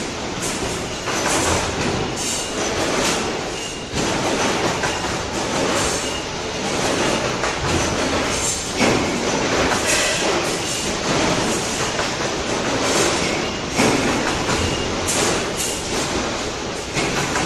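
Steady, loud factory din with short metallic clanks every second or so as a perforated steel sheet is handled and bent in quick strokes on a CNC servo press brake.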